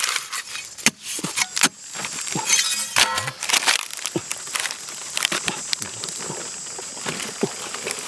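Dry earthen crust being broken open by hand: irregular crunching and crackling as lumps of hardened earth crack and crumble away.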